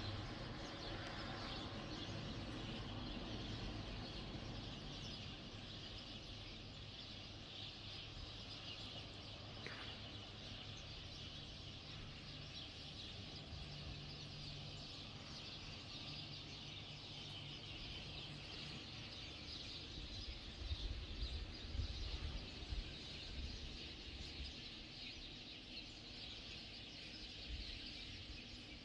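Many small birds chirping together in a dense, continuous chatter, over a low rumble that turns bumpy for a few seconds about two-thirds of the way through.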